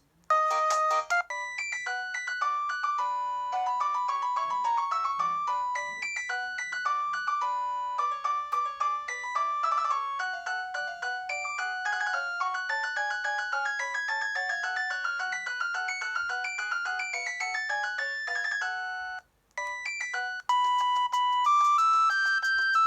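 Preloaded ringtones of a ZTE S2X phone playing one after another. A long electronic melody of quick, bright notes plays, stops briefly about 19 seconds in, and then another ringtone of repeated tones begins.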